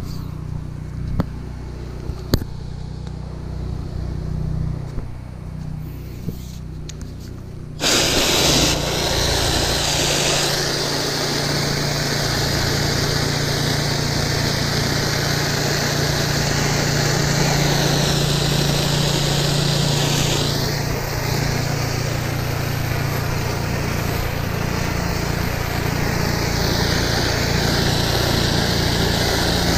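Pressure washer engine running steadily, with a few sharp clicks as the spray wand is handled. About eight seconds in the trigger is pulled and a loud, steady hiss of high-pressure water spraying across brick pavers joins the engine, which keeps running under load.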